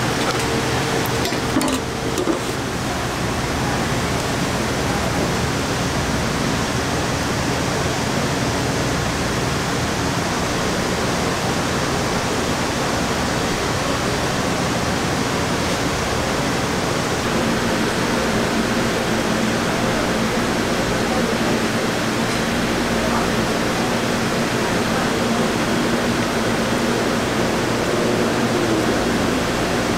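Steady, even hiss of kitchen background noise, with a few light clicks about two seconds in and a faint steady hum joining in the second half.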